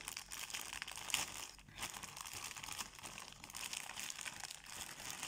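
Plastic courier mailer bag being handled and crinkled by hand: an irregular crackling rustle of many small sharp crinkles.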